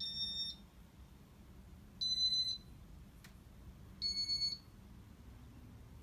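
Three short electronic beeps from a Casablanca ceiling fan's control board, about two seconds apart, each a little higher in pitch than the one before.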